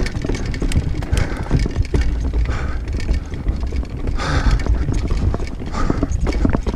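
Diamondback Mission 1 mountain bike descending at speed: tyres clattering over a wooden boardwalk and the bike rattling, under heavy wind buffeting on the camera's microphone.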